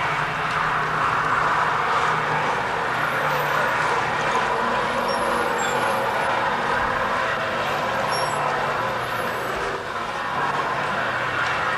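Steady street noise with a low hum running under it, and no single event standing out.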